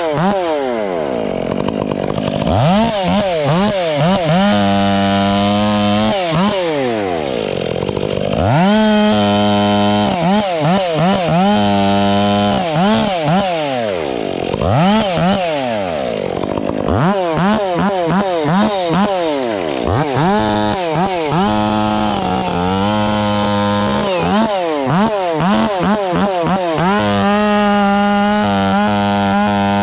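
Chainsaw bucking a log, its engine repeatedly dropping in pitch under load and climbing back up between cuts. A steady low hum comes and goes alongside it.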